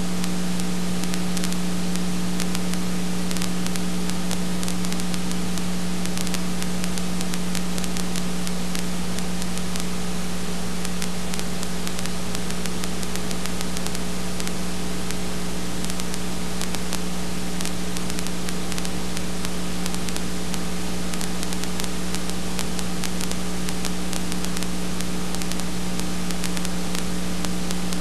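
Steady hiss with a constant low hum and a scatter of faint crackling clicks throughout: background noise of an old home-movie transfer, with no program sound of its own.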